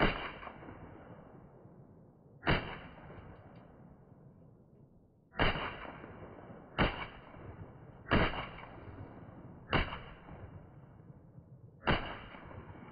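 Seven shots from a 7.62x39 rifle fired at uneven intervals of about one to three seconds, each followed by a short decaying echo.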